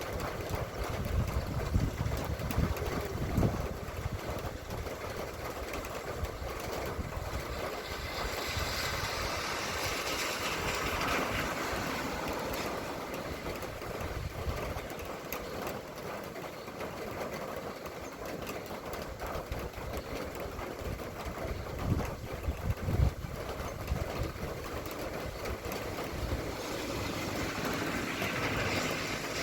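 Rain falling steadily while vehicles pass on the wet road, their tyre hiss swelling and fading about ten seconds in and again near the end. Low thumps knock on the microphone near the start and about two-thirds of the way through.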